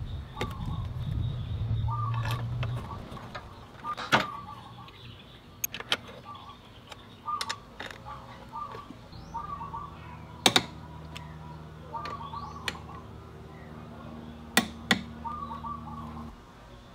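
Sharp metallic clicks and clinks of hand tools, a socket on an extension and a ratchet, as bolts on a scooter's swingarm are fitted and tightened, the loudest about four, ten and fifteen seconds in. A bird chirps repeatedly in the background. A low steady hum runs through the second half.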